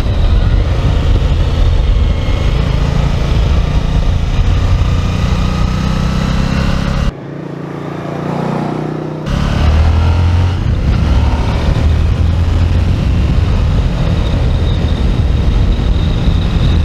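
Suzuki SV 1000 S's V-twin engine running under way, loud and steady. About seven seconds in, the sound drops suddenly to a quieter, rising note for about two seconds, then returns at full level.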